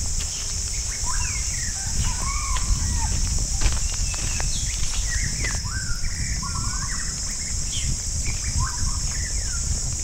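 Forest birds calling with short whistled chirps and trills throughout, over a steady high-pitched insect drone. A low rumble runs underneath.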